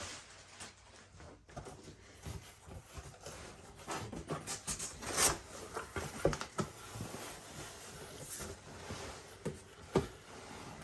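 Box and packaging being handled and opened by hand: irregular rustling and scraping with scattered knocks, and one sharper knock near the end.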